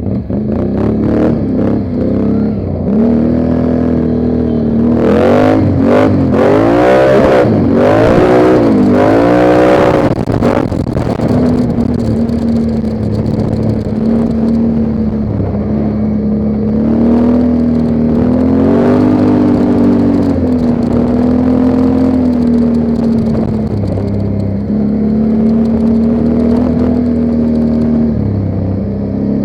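ATV engine running as it is ridden, its pitch rising and falling with the throttle, most sharply in a stretch of quick revs a few seconds in, with several knocks and rattles over that stretch. It then settles to a steadier run.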